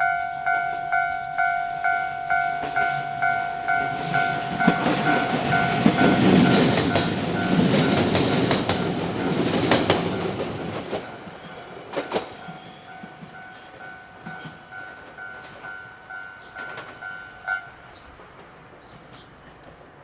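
Japanese level-crossing warning bell ringing at a little over two strokes a second while a JR Kyushu 817 series electric train runs over the crossing. The train's rumble and wheel clacks over the rail joints swell up for about seven seconds in the middle, then fade. The bell stops near the end.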